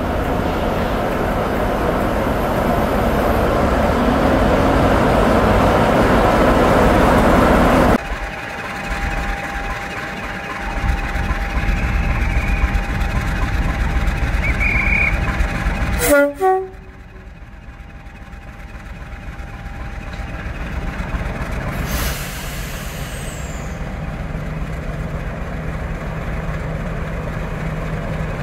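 Diesel locomotive engines at a station platform. A Class 47 runs loudly for about eight seconds. The sound then drops abruptly to a quieter engine, with a clatter about halfway through. A Class 50's engine hums steadily low through the last few seconds.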